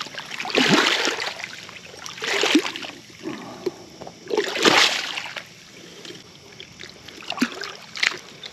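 Splashing in shallow water as a hooked catfish is landed by hand. There are four or five splashes, the loudest about halfway, then two short ones near the end.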